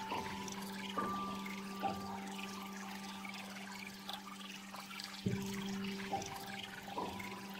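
Soft background music: a low held note with a higher note above it, and sparse bell-like notes struck over them at irregular moments.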